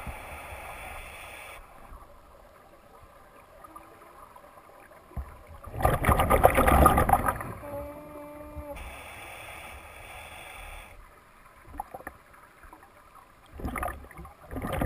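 Scuba diver breathing through a regulator underwater: a hiss of inhaling at the start and again about nine seconds in, and a loud rush of exhaled bubbles about six seconds in and again near the end.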